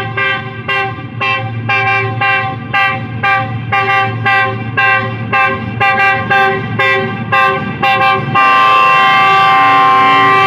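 A GE U40 diesel locomotive's multi-note horn sounding a rapid string of short blasts, about two a second, then one long held blast about eight seconds in. The locomotive's engine runs underneath.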